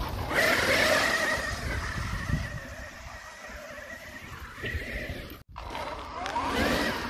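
Losi Super Baja Rey 1/6-scale electric RC truck running hard: its brushless motor and geared drivetrain whine, rising and falling with the throttle, with a sharp rising whine near the end as it accelerates.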